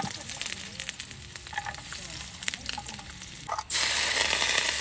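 Food sizzling in an aluminium frying pan on a portable butane camp stove, with scattered light clicks. About three and a half seconds in, the sizzling turns suddenly much louder as canned meat is tipped into the hot pan.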